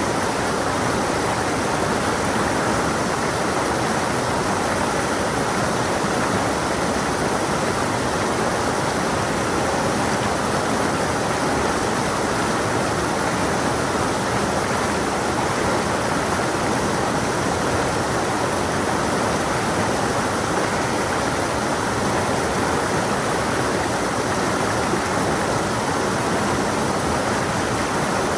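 Stream water rushing and splashing over rocks, a steady, unbroken flow.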